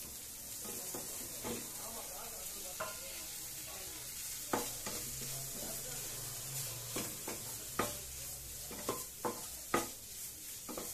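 Grated paneer being stirred into a frying onion-tomato mix with a wooden spatula in a nonstick kadai: a steady sizzle, with sharp knocks of the spatula against the pan every second or so from about halfway, coming faster near the end.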